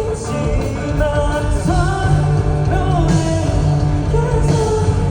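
Live rock band performance: a singer carries a melody over a full band.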